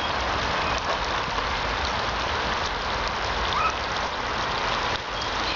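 Water spraying steadily from the slip and slide's sprinkler tube and falling on the wet plastic sheet: an even, unbroken hiss.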